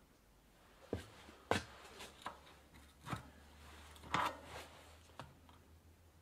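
Metal clicks and clinks of hand work on a bicycle hub: the sprocket coming off the axle, and a flat screwdriver scraping and prying at the hub end. About seven sharp clicks, the loudest about a second and a half in and just after four seconds.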